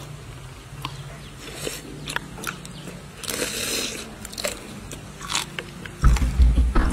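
A person biting and chewing a whole tarantula: crunching with wet mouth clicks, and a longer slurp about three seconds in. A much louder low rumble comes in about six seconds in.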